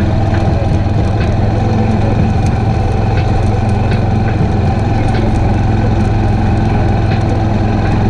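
ATV engine running steadily under way on a sandy trail, with scattered sharp ticks over the engine noise.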